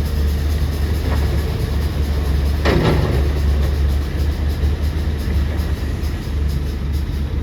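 Hydraulic excavator's diesel engine running steadily with a deep drone. A single short burst of noise, a clank or scrape of the machine, comes a little under three seconds in.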